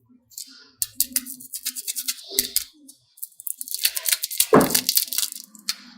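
Hands working play dough and small craft tools: a fast run of crinkles and clicks, pausing briefly midway, over a faint low hum.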